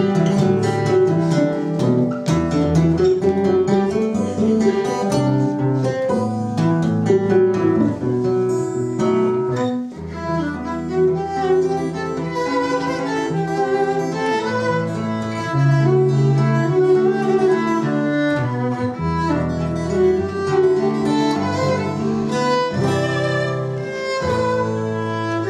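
Violin and acoustic guitar playing an instrumental tune together, the violin bowing the melody over the guitar's accompaniment.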